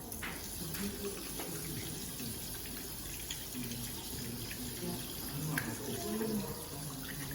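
Water running steadily from a tap into a sink, for hand washing.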